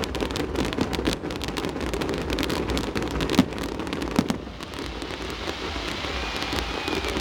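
Fireworks display: a dense run of crackling pops and bangs, with two louder bangs about three and a half and four seconds in. The pops thin out over the last few seconds.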